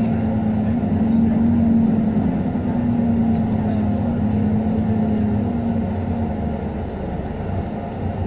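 Alexander ALX400 double-decker bus with a refitted engine that sounds like a Trident E400, running under way, heard from inside the bus. A strong steady engine whine holds, then fades about six seconds in as the engine eases off and the bus slows.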